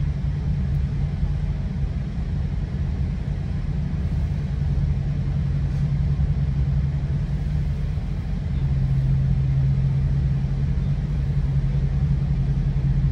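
Running noise heard inside a moving GO Transit bilevel passenger coach: a steady low rumble with a hum. The hum grows stronger about eight and a half seconds in.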